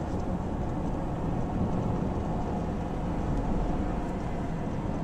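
Steady low road and engine noise of a car being driven.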